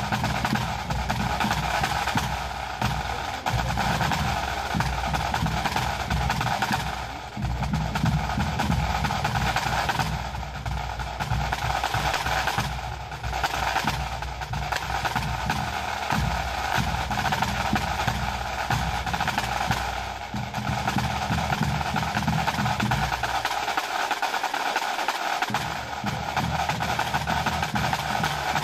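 Pipe band playing: Great Highland bagpipes over snare drums with rolls, tenor drums and a bass drum. The deep low part drops out for a couple of seconds near the end.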